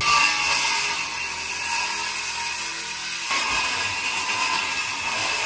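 Power saw running steadily as it cuts through a wooden board wall to open a hole for a window.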